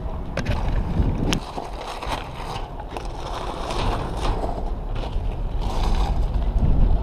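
Bicycle riding with wind buffeting the microphone and the tyres rolling and rattling, then running onto a metal-decked footbridge; two sharp clicks about half a second and a second and a half in.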